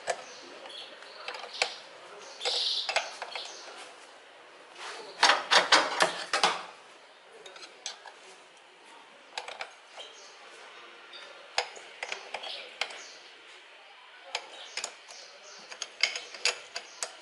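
Hand socket ratchet clicking and metal tools clinking while the throttle body's mounting bolts are done up. The clicks come in short irregular runs, with the densest and loudest run around the middle.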